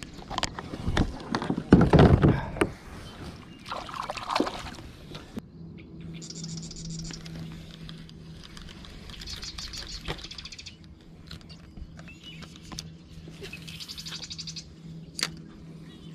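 Knocks and handling bumps on a plastic fishing kayak, then a spinning reel being wound in three spells of fine, rapid clicking over a steady low electric hum from the trolling motor.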